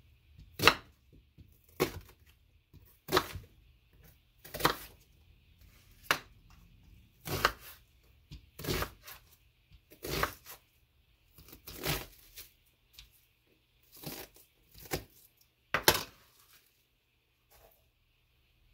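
Kitchen knife chopping an onion on a wooden cutting board: about a dozen separate sharp cuts, roughly one every second and a half, stopping a couple of seconds before the end.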